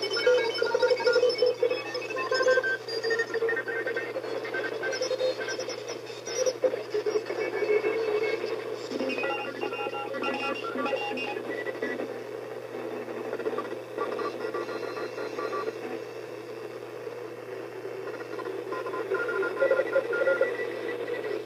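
Shortwave radio receiver on the 21 MHz band picking up an unidentified data signal: short beeps at many different pitches hopping about rapidly over a band of static hiss.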